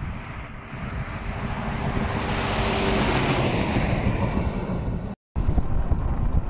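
Steady road and wind noise from a moving vehicle, with a heavy low rumble. It cuts out abruptly for an instant about five seconds in, then carries on.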